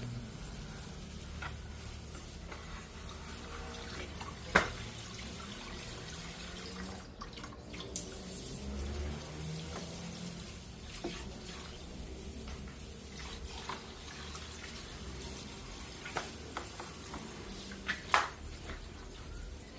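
Running water splashing steadily, as when air-conditioner parts are rinsed during cleaning, with a few sharp knocks, the loudest about four and a half seconds in and another near the end.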